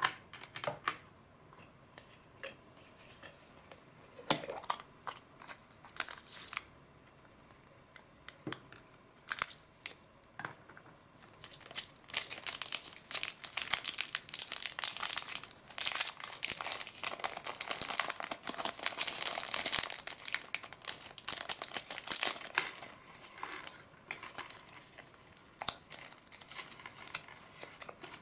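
Small clear plastic bag crinkling and rustling as hands handle it and work a carded pearl earring out of it. Scattered light clicks and rustles come first, then steady crinkling through the middle that thins out near the end.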